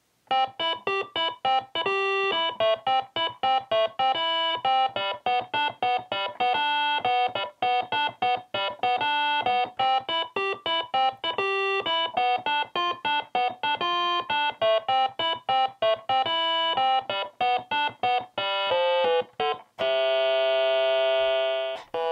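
Oskitone OKAY 2, a 3D-printed monophonic synthesizer built around a 555 timer chip, played by hand one note at a time. It plays a quick run of short, separated notes and ends on a longer held note near the end.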